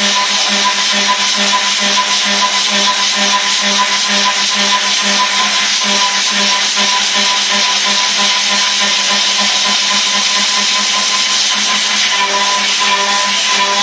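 Haas CNC mill high-speed milling 1018 steel with an Iscar carbide end mill. The cut is loud and steady, with a sustained pitched tone over the hiss of the cutting.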